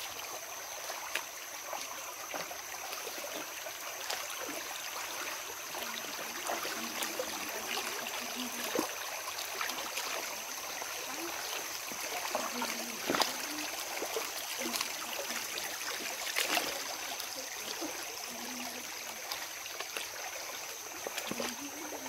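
Shallow rocky jungle stream running steadily, with the splashing steps of people wading through it and a few sharper splashes, the loudest about 13 seconds in.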